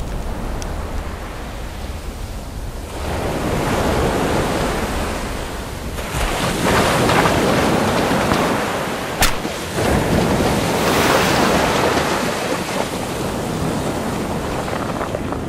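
A loud rushing noise, like wind or surf, that swells and eases several times, with one sharp crack about nine seconds in.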